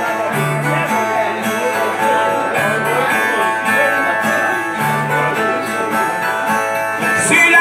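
Two Brazilian violas (steel-strung ten-string guitars) playing the instrumental break between the sung stanzas of a repente, a plucked and strummed phrase over a low bass note that comes back about every two seconds.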